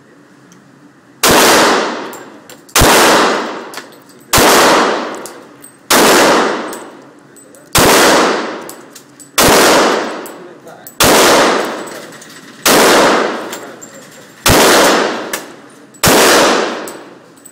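Ten gunshots fired one at a time at a steady pace, about a second and a half apart, at steel targets. Each shot is followed by a ringing tail that fades over about a second.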